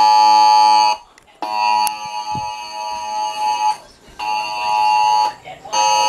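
Cell phone Wireless Emergency Alert attention signal: a loud, harsh two-tone alarm sounding in blasts with short gaps, one second, then a longer two-second blast, then two one-second blasts, marking the nationwide test alert.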